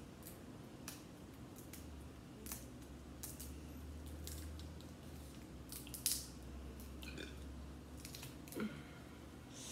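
Kitchen scissors snipping through snow crab leg shell: about half a dozen faint, separate snips and cracks.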